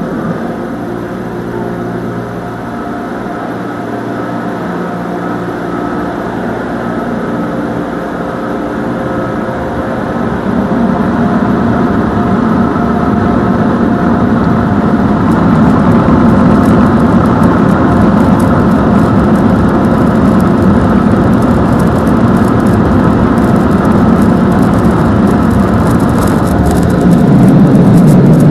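LaserWash touchless car wash machine running, heard from inside the car: a steady motor hum with held tones under a rushing noise. It grows louder about ten seconds in and again near the end as the overhead arch comes over the front of the car.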